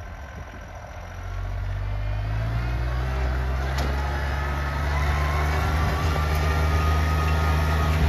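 Compact tractor engine speeding up about a second in, then running steadily at higher revs while towing a sled, growing louder as it draws near.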